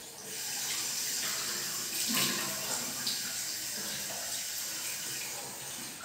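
Tap water running steadily into a bathroom sink, with a few splashes as water is scooped onto the face.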